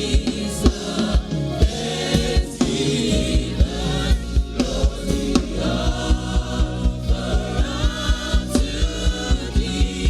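Gospel worship music: voices singing over a band, with a steady drum beat thumping throughout.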